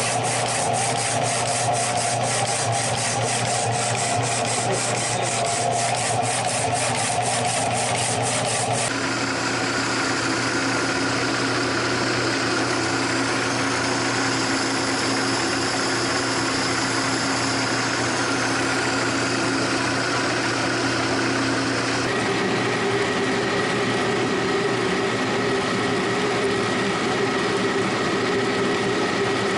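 Machine tool running and cutting a cast aluminum pulley blank: a steady motor hum under a continuous cutting noise. In the first part a fast, even ticking rides over it, and the sound changes abruptly about 9 and 22 seconds in.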